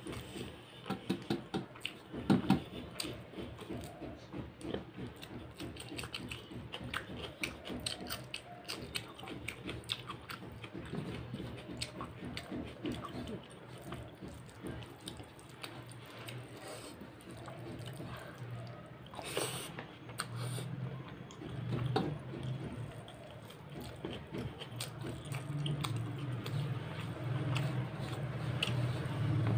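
Close-up chewing and biting of a mouthful of mutton curry and rice, with many short wet mouth clicks and smacks. A low hum builds in the second half.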